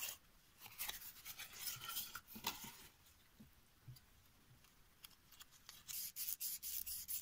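An epoxy resin ring being hand-sanded with 600-grit sandpaper: quick back-and-forth rasping strokes. One run comes in the first few seconds and another near the end.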